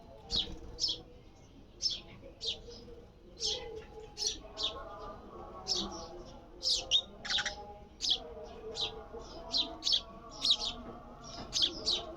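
A sparrow chirping repeatedly in short, high chirps, two or three a second, with brief pauses between bursts.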